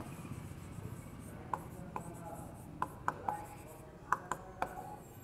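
Writing on a board: a faint scratching, then a run of short, sharp taps as the letters are put down, about eight over three seconds.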